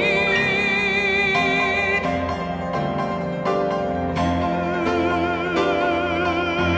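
A male singer holds one long note on the word "seen", the final held note of the song, over piano accompaniment. The note starts steady and takes on a wide vibrato about halfway through, while the piano chords change beneath it.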